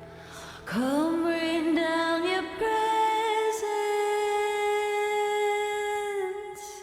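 Background worship music: a long held note slides up into pitch about a second in, is held, steps once, and fades near the end.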